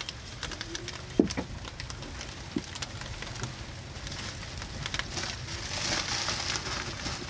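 Rain and sleet pattering on a small boat's cabin roof, with scattered light ticks and one sharp wooden knock about a second in as split firewood is handled. The patter grows heavier in the last couple of seconds.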